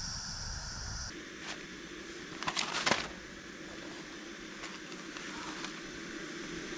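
Small camping gas stove burning steadily, with a short rattling clatter of small hard pieces about two and a half seconds in and a few single light clicks after.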